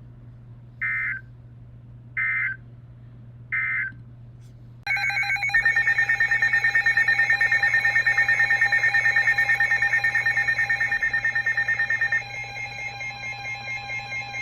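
Emergency Alert System tones: three short bursts of digital SAME data tones, then about five seconds in a loud, rapidly pulsing electronic alert tone that drops to a lower level near the end.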